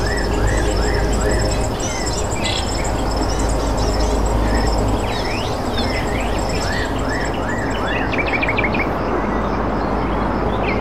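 Several birds chirping and calling at once: rapid runs of high repeated chirps, quick sweeping notes, and short series of rising notes, over a steady low rumble.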